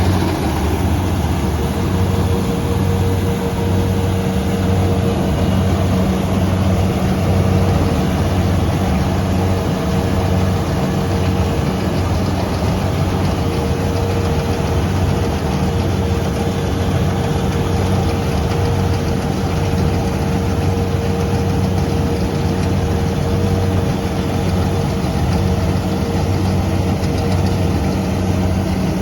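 Rice combine harvester running steadily: a continuous engine drone with a steady hum from its machinery, unchanging throughout.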